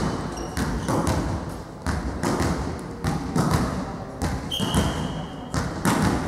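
A volleyball bounced again and again on a hard gym floor, each thud echoing in the large hall. One short, steady, high whistle blast sounds about four and a half seconds in, typical of the referee signalling the serve.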